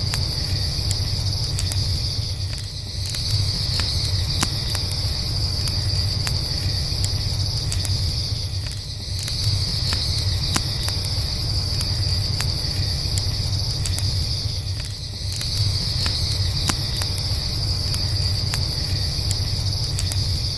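Crickets chirping in a steady high chorus that swells and fades about every six seconds, over a campfire crackling with scattered sharp pops and a low steady rumble.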